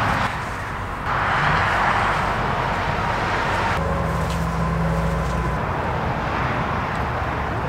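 A vehicle engine running steadily over outdoor noise, its low hum growing stronger for a couple of seconds midway.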